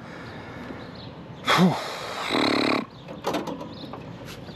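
A short vocal sound falling in pitch, then a brief held low groan, about a second and a half in, followed by light clicks of handling.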